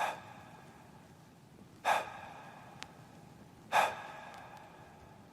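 Three sharp, gasp-like breath sounds at even spacing, about two seconds apart, each trailing off with a ringing, reverberant tail: the sparse opening of a K-pop song before its vocals begin.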